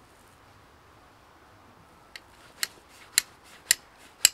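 Steel striker hitting a flint held in a tinder bundle of shredded dry fireweed. It gives five sharp, metallic strikes about two a second, starting about halfway through, throwing sparks into the tinder to light it without char cloth.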